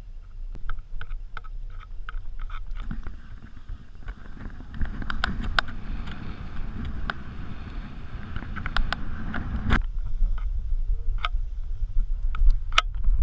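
A powsurf board sliding and carving through snow: a rushing hiss with scattered crunchy clicks that swells about four seconds in and cuts off abruptly near ten seconds, over a low wind rumble on the camera microphone.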